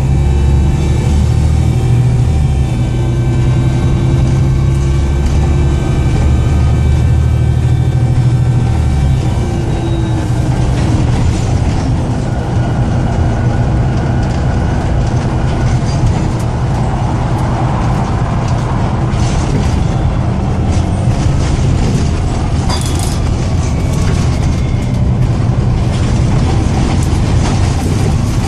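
Volvo B7TL double-decker bus's diesel engine running loud, with a strong low drone and steady higher whining tones, which the uploader puts down to a bad turbo leak. After about nine seconds the drone drops away into broader running noise, with scattered rattles and clicks.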